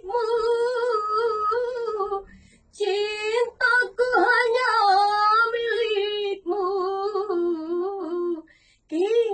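A woman singing a slow dangdut song unaccompanied, holding long notes with vibrato. There are short breaks for breath about two seconds in and near the end.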